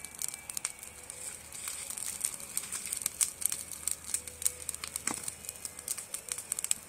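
Wood campfire crackling, with irregular small pops and snaps over a steady hiss; one sharper snap about five seconds in.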